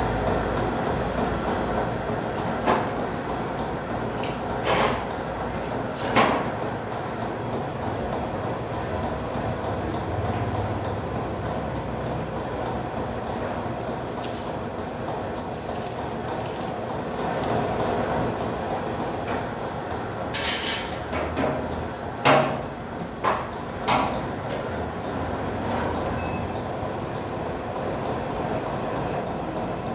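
Steel drum lid-cutting machine running, its cutter working around the drum's rim with a steady high-pitched metal squeal over a rattling mechanical noise. A few sharp knocks break in, several clustered a little past two-thirds of the way through.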